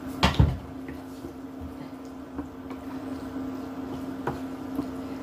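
A sharp knock against the pan, then a wooden spatula stirring thick tomato sauce with plant-based mince in a frying pan, soft and squishy, over a steady low hum.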